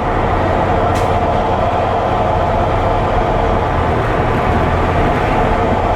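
Ready-mix concrete mixer truck's diesel engine running steadily while driving, heard from inside the cab with road noise, and a single short click about a second in.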